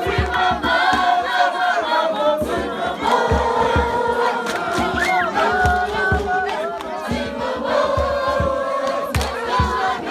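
A group of young voices singing a song together around a campfire, several held notes moving in step, with low thumps from stamping or drumming underneath.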